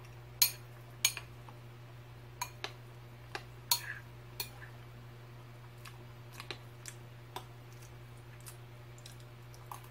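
Metal spoon clinking against a bowl of cereal and milk: several sharp clinks in the first few seconds, then fainter, sparser ones, over a steady low hum.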